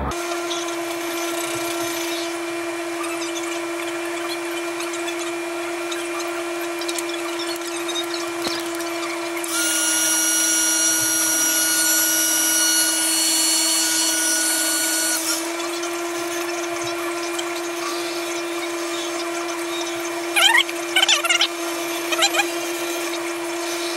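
An electric soldering gun switched on for about six seconds in the middle, buzzing with a high whine over a steady electrical hum. A few short rustling squeaks follow near the end.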